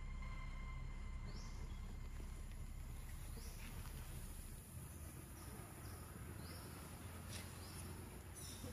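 Faint outdoor background: short, high, rising chirps every second or two over a low, steady rumble.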